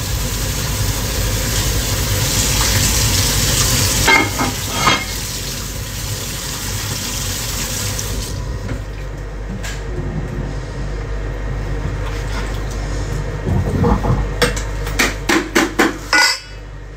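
Kitchen work at a counter: a steady rushing hiss, with a few knocks early on and a quick run of clattering knocks of metal dishes and pans near the end, after which the hiss cuts off suddenly.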